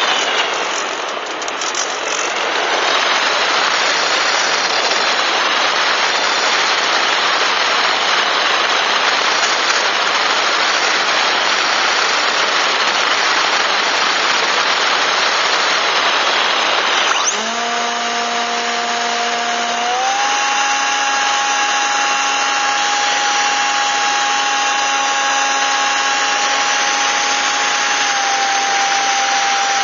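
RC model plane in flight, heard from its onboard camera: a loud rush of air and motor noise. About 17 seconds in the level drops a little and a steady motor-and-propeller whine comes through, stepping up in pitch a few seconds later and dipping slightly near the end, as the throttle changes.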